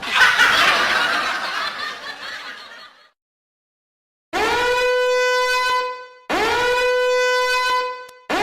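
Meme sound effects: a loud noisy rush that fades away over about three seconds. Then, after a short gap, a horn-like note scoops up to one steady pitch and holds; it sounds three times, each blast about two seconds long.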